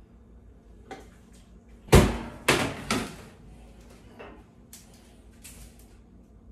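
Metal kitchenware clattering: a loud clunk about two seconds in, then two more clanks close behind, as a metal sheet pan of roasted broccolini is taken from the oven and set down. Lighter clicks of tongs against the pan follow.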